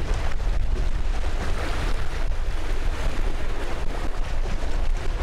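Wind buffeting the microphone over the steady rush and splash of water along a sailboat's hull, sailing with the engine off.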